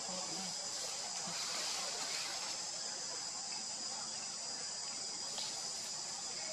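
Steady, high-pitched chorus of forest insects.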